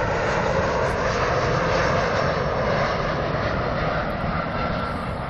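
Large airliner's engines running as it passes low on its landing approach, a steady noise that eases off slightly near the end.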